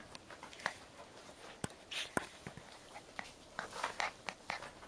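A Labrador retriever mother and her puppy play-wrestling on a mat: scattered soft scuffles, clicks and mouthing sounds, growing busier near the end.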